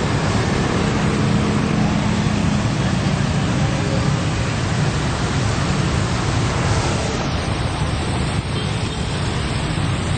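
Road traffic passing close by: a loud, steady rush of tyre and engine noise with a low engine hum, from heavy vehicles on the road.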